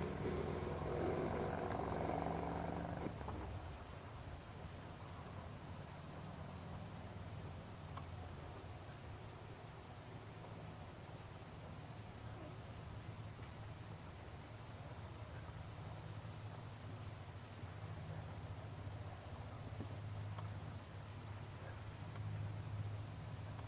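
Field insects singing a steady, high-pitched trill over a low hum; the trill stops shortly before the end.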